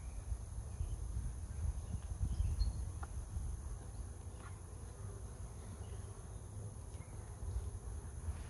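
Honeybees buzzing around an open hive during a frame inspection, under a low rumble of handling or wind noise on the microphone.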